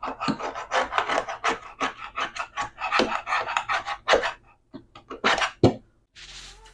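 Scrubbing grime off a kitchen cabinet by hand: quick back-and-forth rubbing strokes, about three or four a second, that thin out and stop about five and a half seconds in.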